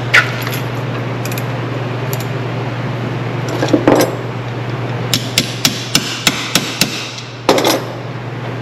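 A hammer striking repeatedly: a quick run of about seven blows, three or four a second, with a few heavier knocks before and after it, over a steady low hum.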